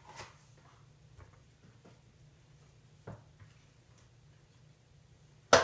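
A few light taps and clicks from handling tarot cards and deck boxes on a table, with a sharp knock near the end, over a steady low hum.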